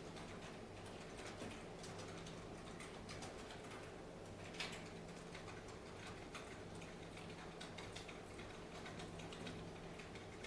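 Quiet room tone: a low steady hum with faint, scattered light clicks, one a little louder about four and a half seconds in.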